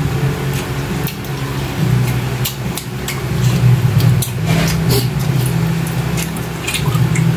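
People eating with their hands and chewing, with many short wet clicks and smacks, over a steady low hum that shifts pitch a few times.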